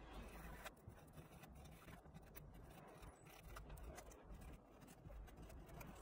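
Faint, irregular scraping of a fine needle file against the end of a flat flex ribbon cable, wearing away the insulation to expose the copper contacts.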